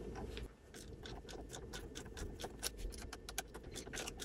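Faint, irregular metallic clicks and ticks of small hardware being worked by hand as a locking nut is started onto the light's mounting bolt. The clicks come thickest about halfway through.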